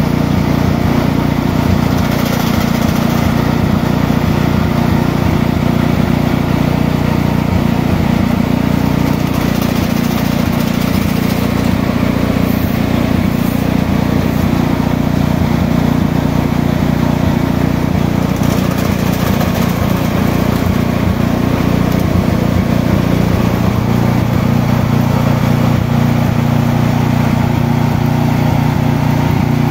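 A small engine on an orange chipper-shredder runs steadily, mixed with the rushing air of a large drum fan blowing across loose indigo leaves.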